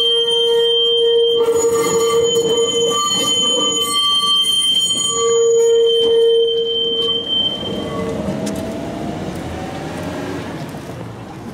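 Wheels of a Gotha-type tram squealing as it rounds a tight curve: a loud, steady, high shriek with several pitches at once that dips briefly and returns. It fades out about seven or eight seconds in, leaving a fainter rumble of the wheels on the rails as the tram moves away.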